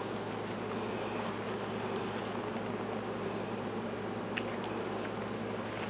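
A steady low electrical hum, like a buzz, with a couple of faint light clicks about four seconds in and near the end.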